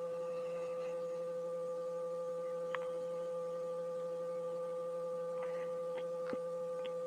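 Steady high-pitched hum with a few light metallic clicks, from a socket wrench turning a Bajaj CT100's crankshaft by hand to find the T timing mark.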